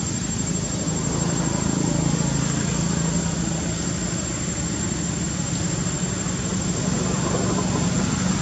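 A steady low engine hum, like a motor idling, with a constant thin high whine above it.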